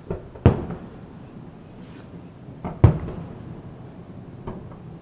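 Aerial firework shells bursting, a series of sharp booms each with a short echoing tail: two near the start, the loudest pair close together about three seconds in, and a faint one near the end.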